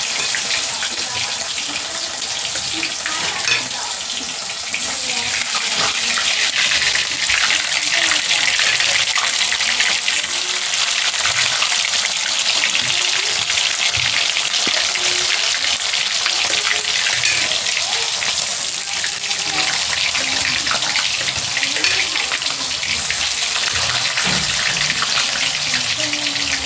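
Paneer cubes frying in hot oil in a kadhai, a steady crackling sizzle.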